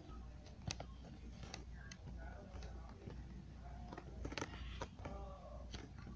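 A handful of sharp, separate clicks, over faint voices in the background and a steady low hum.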